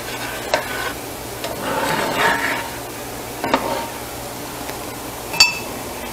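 A large spoon stirring and scraping a thick cream sauce in a skillet, with a couple of knocks, then one sharp ringing clink of the utensil against the pan about five and a half seconds in.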